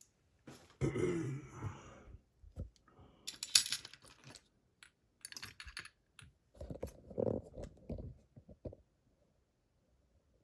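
Small metallic clicks, rattles and jingles of a just-picked DORMA DC500 lock and lockpicking tools being handled and set down, with a bright jingle about three and a half seconds in and a run of light knocks near the end.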